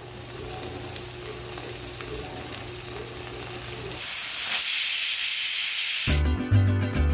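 Prawns sizzling in a steel pan over a steady low hum. About four seconds in, a pressure cooker's weight valve vents steam with a loud hiss for about two seconds; the hiss is the loudest sound.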